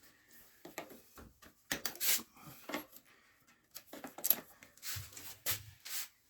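Hand work on an e-bike during disassembly: irregular clicks, knocks and scraping of tools and metal parts being handled, with a couple of duller thuds about five seconds in.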